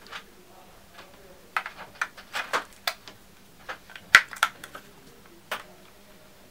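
Sharp plastic clicks and knocks, about a dozen in a few seconds, from a TV remote control and a handheld infrared detector being handled; the loudest click comes just after four seconds in.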